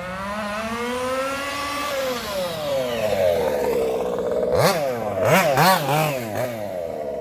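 Small two-stroke petrol engine of an MCD XR5 1/5-scale RC car running under throttle, its pitch climbing and falling over the first few seconds. After about four and a half seconds it gives a string of quick revs.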